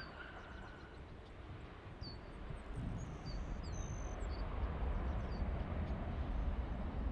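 Airbus A350's Rolls-Royce Trent XWB jet engines at takeoff thrust, a low rumble that builds from about two seconds in as the airliner climbs away. Small birds chirp over it.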